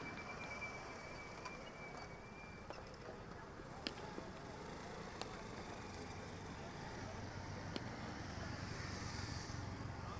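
Faint outdoor ambience: a steady hum of distant traffic with far-off voices, broken by four sharp knocks spread a second or more apart. A thin high whine stops about two and a half seconds in.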